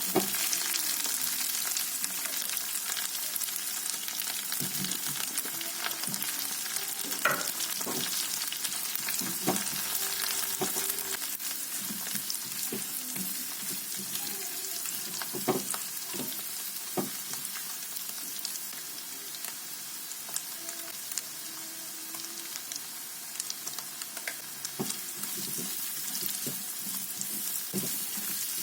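Food sizzling in a hot frying pan while being stirred, with a spatula now and then knocking against the pan.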